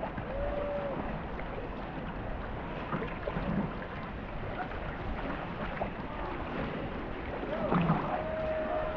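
Water noise and paddling from a racing canoe under way on a river, with wind on the microphone.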